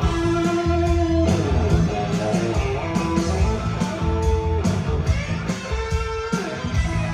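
Live rock band playing an instrumental break: an electric guitar lead with held and sliding notes over a steady drum beat and bass.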